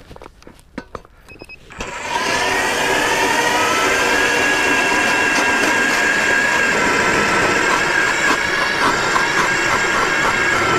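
StrikeMaster Lithium battery-powered ice auger starting up about two seconds in. Its motor whine climbs briefly as it spins up, then runs steady as the bit drills through the lake ice.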